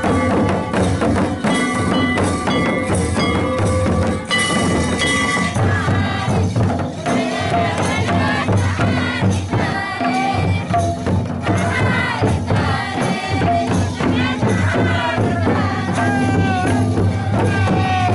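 Santali Sohrai folk dance music: dense, rapid drum and percussion strokes with held melodic tones, joined about six seconds in by wavering singing voices.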